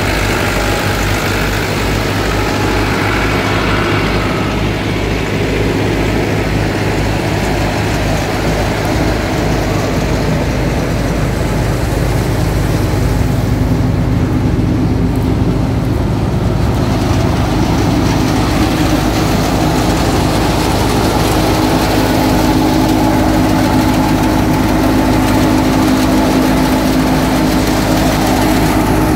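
Massey Ferguson 375 tractor's four-cylinder diesel engine running steadily, driving a wheat thresher, with the thresher's steady hum mixed in. The hum grows stronger about two-thirds of the way through.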